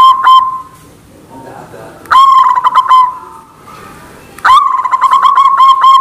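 White zebra dove (perkutut) cooing in fast, evenly repeated trilled notes, loud and close. One phrase ends about half a second in, a short burst follows about two seconds in, and another phrase opens with a rising note about four and a half seconds in and keeps going.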